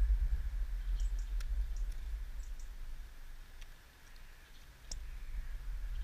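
A low rumble on the microphone comes in two stretches, fading near the middle and returning near the end. Over it come a scatter of faint, short, high chirps and clicks from small garden birds.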